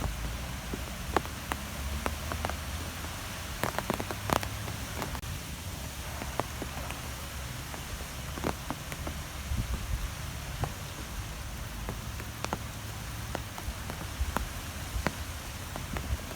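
Wind blowing steadily, with a low rumble and scattered sharp ticks of varying strength, a few of them louder, about four seconds in and near the end.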